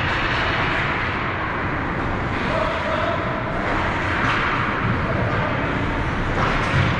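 Steady ice rink noise during a youth hockey game: skates scraping on the ice and play going on, with a brief faint call or shout partway through.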